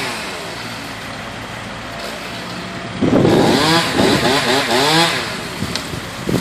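Two-stroke chainsaw engine running low for about three seconds, then revving up and down as it cuts.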